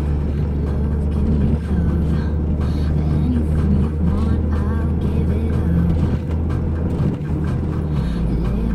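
Steady engine and road rumble heard from inside a moving car, with the car radio playing music over it.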